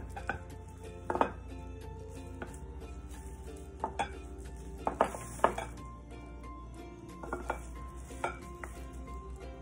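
A wooden spoon knocking against a glass bowl and a baking dish as chunks of beef are lifted from broth and set in the dish: scattered sharp knocks, loudest about one second and five seconds in, over soft background music.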